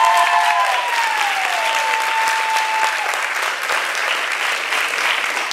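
Audience applauding steadily, with long, high cheering whoops over the clapping in the first three seconds.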